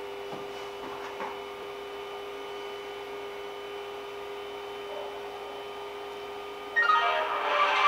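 Creality CR-10s Pro V2 3D printer freshly switched on, its fans humming steadily. About seven seconds in, loud music starts over it.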